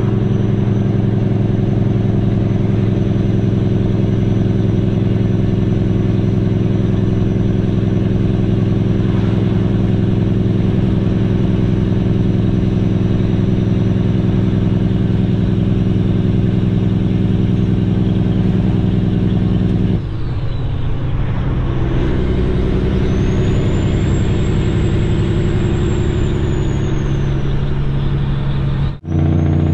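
Semi-truck's diesel engine running steadily under load, heard inside the cab while hauling a heavy dozer on the trailer. The engine note changes about two-thirds of the way through, and the sound drops out briefly near the end.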